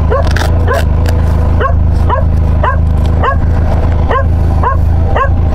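A dog barking repeatedly, about three short barks a second, over a steady low engine hum.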